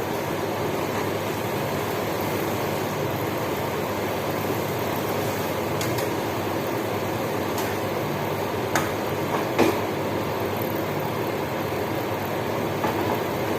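Steady rushing noise of food cooking on a kitchen stove, with a few sharp clicks, the loudest about nine to ten seconds in.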